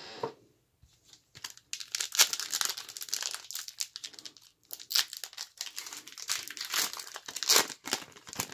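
1990-91 Skybox Series II trading-card pack wrapper being torn open and crinkled by gloved hands. A dense run of crackling crinkles starts about a second and a half in, with louder rips and crunches scattered through it.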